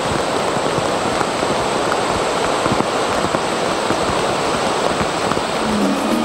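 Flood-swollen river rushing, a steady even hiss of fast, high water.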